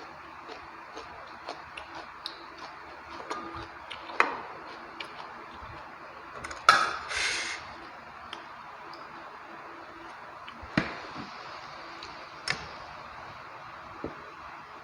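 Close-miked eating sounds of a person eating rice and chicken curry: small mouth clicks and chewing noises, with a few louder sharp sounds and one louder wet, noisy burst lasting about a second about seven seconds in.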